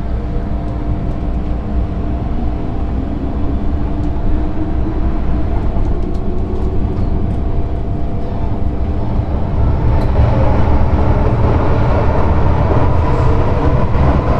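MTR M-train electric multiple unit running, heard from inside the car: a steady low rumble of wheels on the rails with a motor hum, growing louder about ten seconds in.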